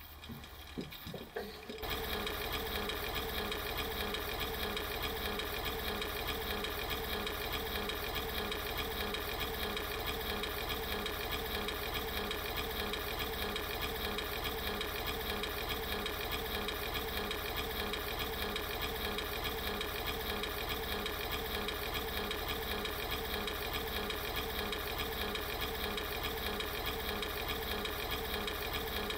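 A steady machine-like whirring drone with a fast, even pulse and several held tones. It starts abruptly about two seconds in and does not change.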